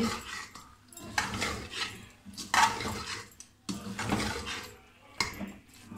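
A metal spoon scraping and knocking against a metal pot as it stirs a thick potato curry, in about five separate strokes.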